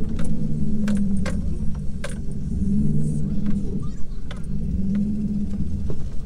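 A Jeep Grand Cherokee's engine running at low revs inside the cab as it crawls over a rough, muddy trail, the revs rising and falling a little. Sharp clicks, clunks and jangling rattles come from the cab as it bounces.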